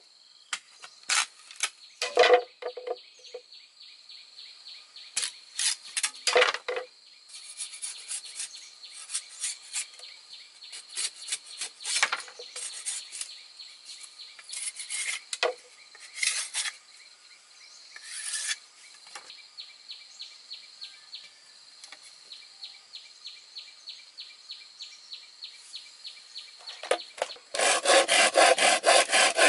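A knife blade shaving and scraping bamboo in short irregular strokes, ending in a fast run of louder scraping strokes. Insects trill steadily behind.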